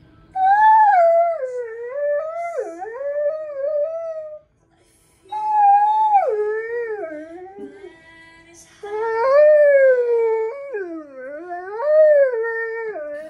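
German Shorthaired Pointer howling along to a song: three long howls a few seconds each, the pitch wavering up and down, with short breaks between them.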